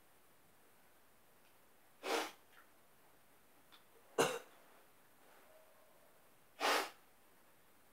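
A person sneezing three times, a little over two seconds apart, each a short, sharp burst; the middle one is the sharpest and loudest.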